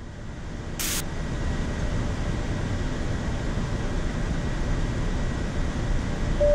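Steady rushing noise of airflow and air conditioning on a Boeing 787-9 flight deck in flight, fading in over the first second, with a brief hiss about a second in.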